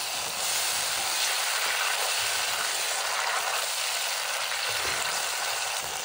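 Spiced food frying: a steady sizzle.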